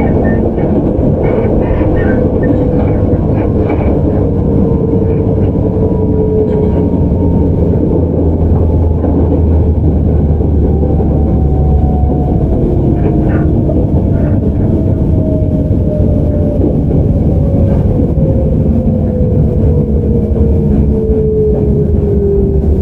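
Running sound heard aboard a JR 413 series resistance-control electric train car (KuMoHa 413-3): heavy steady rumble with a motor whine whose pitch falls slowly and steadily, as the train slows.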